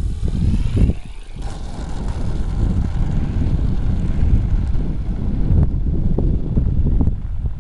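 Wind buffeting the microphone with a heavy low rumble that rises and falls in gusts. A faint whine glides in pitch in the first second or so: the RC model airplane's motor passing overhead.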